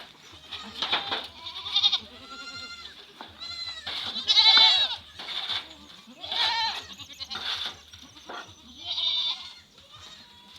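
Goats bleating, a run of repeated quavering calls from more than one animal, some overlapping, the loudest about four to five seconds in.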